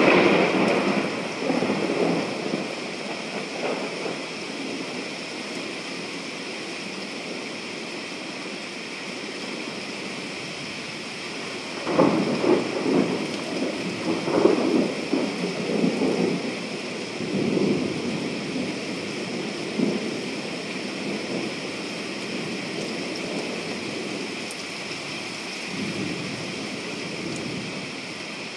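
Steady rain with rolling thunder. A sudden loud clap at the start rumbles off over a few seconds. A second, longer roll builds about twelve seconds in, and fainter rumbles follow near the end.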